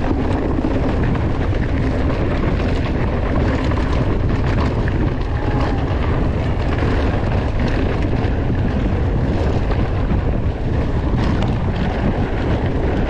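Steady wind rumble on the microphone of a mountain bike being ridden along a rough trail, with tyre noise and many small knocks and rattles from the bike.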